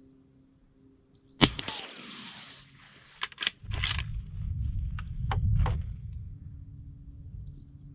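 A single suppressed shot from a 300 Blackout bolt-action rifle about a second and a half in, its report trailing off. It is followed by a few sharp metallic clicks with a low rumble, typical of the bolt being worked to eject the case and chamber the next round.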